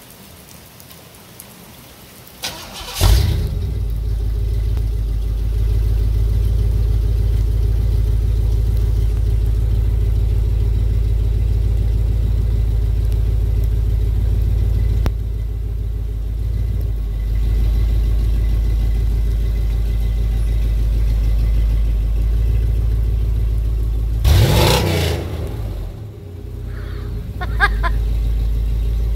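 Chevy C10's 350 small-block V8 cranking and catching about three seconds in, then idling with a steady, deep exhaust rumble. A brief rev comes about 24 seconds in, after which it settles back to idle. Light rain patter is heard before the engine starts.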